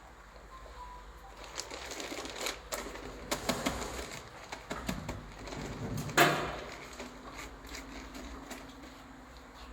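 Plastic packaging and a vacuum sealer being handled: irregular rustling and small clicks, with one louder sharp click about six seconds in.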